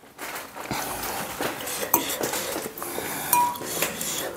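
A metal spoon and fork clinking and scraping in a bowl of noodle soup as the noodles are stirred and lifted, with scattered light clicks and one short ringing clink about three and a half seconds in.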